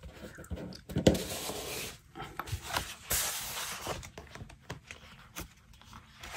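Sheets of scrapbook paper rustling and sliding against one another as they are gathered into a stack, with a few soft knocks of the stack against the cutting mat.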